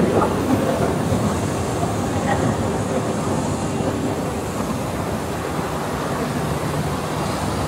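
Steady low ambient noise of a large exhibition hall, even throughout, with no clear voices.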